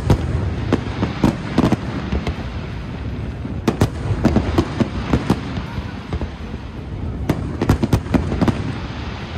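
Aerial firework shells bursting in an irregular series of sharp bangs, some in quick clusters, over a continuous low background rumble of the display.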